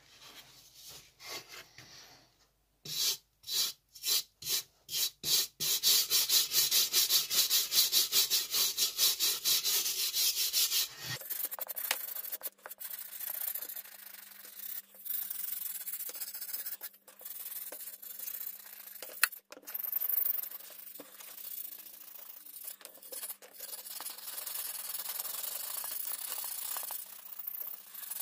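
Brass wire brush scrubbing the painted steel shell of an M40 helmet, wearing through the fresh paint to age it. A few separate strokes, then fast back-and-forth scrubbing at several strokes a second, the loudest part, then quieter, uneven brushing.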